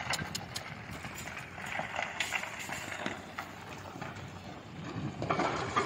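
Rocks and stones clattering down a landslide slope: a run of irregular knocks over a rumbling hiss, growing a little busier near the end.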